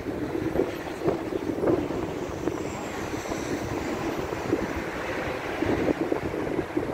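Street traffic: cars driving past on a wide city road, a steady rush of tyres and engines with wind rumbling on the microphone. Soft footsteps on paving about twice a second.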